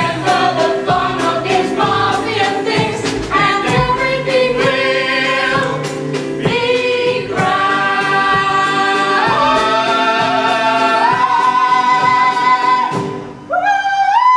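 Several voices singing a musical-theatre song with accompaniment, building to long held closing notes that stop about 13 seconds in; a brief rising voice follows near the end.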